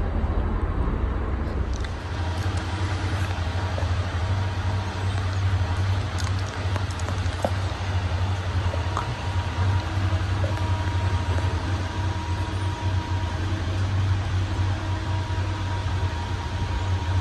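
Ceiling fan running on high speed: a steady low hum under an even rush of moving air, with a faint thin whine that comes and goes.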